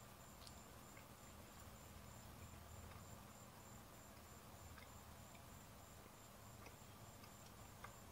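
Near silence, with crickets trilling faintly in a high-pitched, evenly pulsing chirp, and a few faint clicks.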